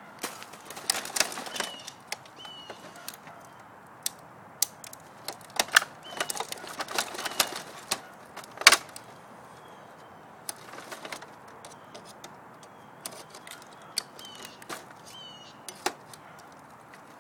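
Irregular metal clicks, taps and scraping as a printer's stepper motor is worked loose from its metal mount with hand tools, in clusters with pauses between, the sharpest click about two thirds of the way through.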